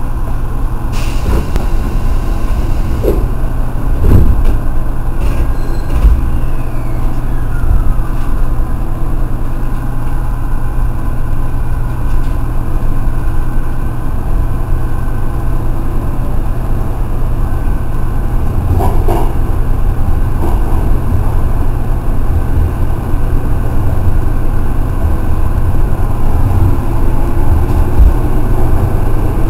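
Sanyo 5000-series electric train pulling out and running through a tunnel, heard from behind the driver's cab: a steady low rumble with occasional knocks, and a motor whine rising in pitch near the end as it gathers speed.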